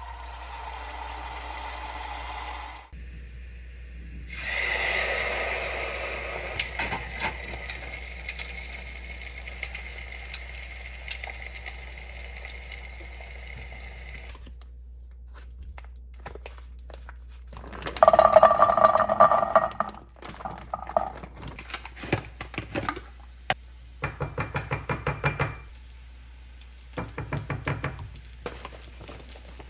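Home kitchen sounds in short cuts: a steady hiss for about ten seconds, then a burst of clattering kitchenware and scattered knocks. Near the end come two short runs of quick, even knocks.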